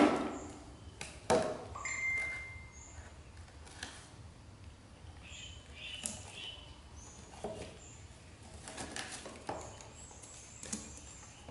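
Scattered knocks and taps of a baby monkey handling a plastic water bottle and other small objects on a hard floor. The loudest is a sharp clack at the start, with another about a second later and a few short high squeaks in between.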